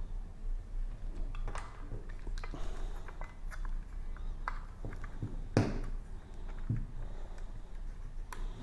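Scattered small clicks and knocks of hands handling a Schlage keyless door lock while its battery is being disconnected, with a louder knock about five and a half seconds in.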